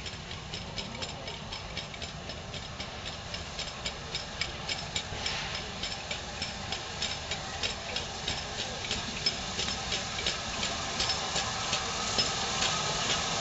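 Midland Railway 4F 0-6-0 steam locomotive No. 43924 drawing slowly into a station: a steady steam hiss with a regular beat of short sharp strokes, growing louder as it comes nearer.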